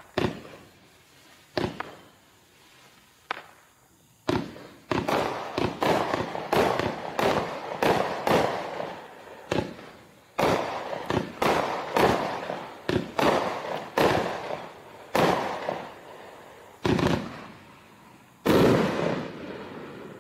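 GC1001 Wildcat Holler multi-shot fireworks cake firing a string of shots: three sharp bangs about a second and a half apart, then a quicker run of bangs from about four seconds in, each trailing off in crackle. The biggest, longest burst comes near the end.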